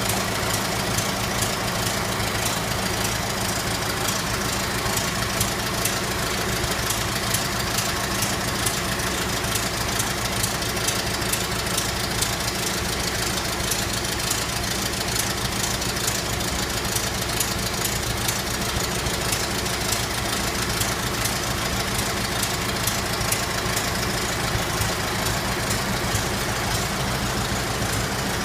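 1924 Ford Model T's four-cylinder engine running at a steady speed, with a fine, rapid, even ticking over its hum.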